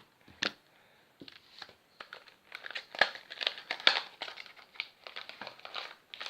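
A fidget spinner's packaging being handled and opened, crinkling in quick irregular crackles that get busier after a short lull near the start.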